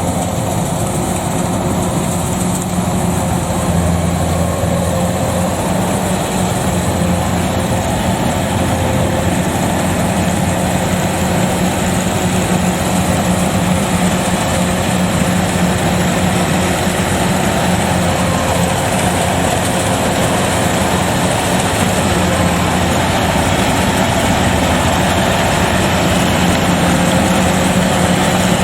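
Kubota DC105X combine harvester's diesel engine running steadily under work, a continuous drone with a constant low hum, growing slightly louder toward the end.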